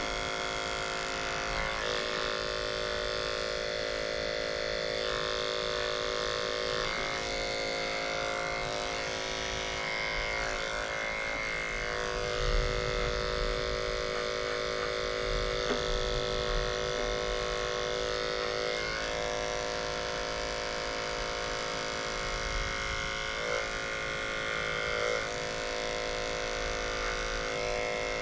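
Corded electric dog grooming clippers with a #30 blade running with a steady hum while trimming the fur between a puppy's paw pads, with a few brief louder moments around the middle.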